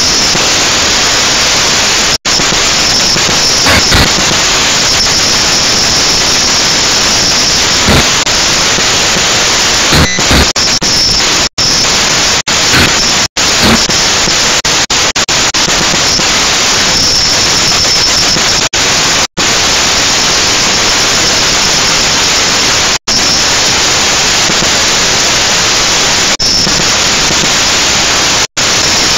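Loud steady hiss of a toy quadcopter's motors and propellers through its onboard camera's microphone while it flies, broken by brief dropouts to silence several times.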